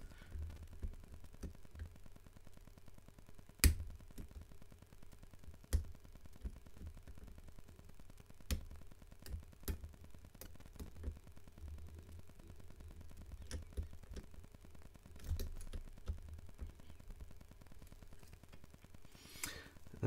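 Small, irregular metal clicks and ticks of a lock pick working against the levers inside a Fichet lever safe lock, a few of them sharper and louder, over a faint low handling rumble. The pick is being used to lift the levers one by one to their gates while tension is held on the lock.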